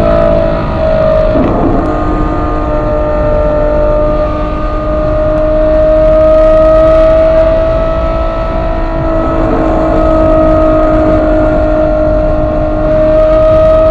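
Ferrari 812 GTS's 6.5-litre naturally aspirated V12 with Novitec exhaust, heard from the driver's seat, holding a steady drone while cruising at motorway speed. The pitch wavers briefly about a second and a half in, then stays flat and begins to rise near the end as the engine picks up.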